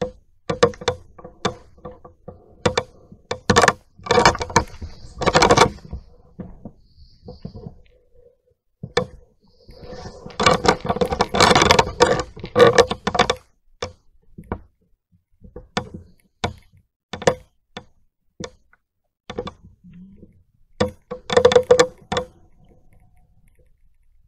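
A string of irregular sharp knocks and clicks, clattering densely in stretches about four, ten and twenty-one seconds in.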